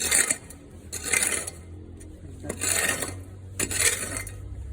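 Rubble and debris being scraped off the ground in repeated rasping strokes, roughly one a second, with a short pause around the middle.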